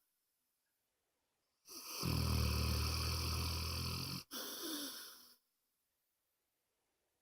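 A sleeping dog snoring: one loud, buzzing snore about two seconds in that lasts a little over two seconds, followed straight away by a shorter, softer breath, with quiet pauses before and after.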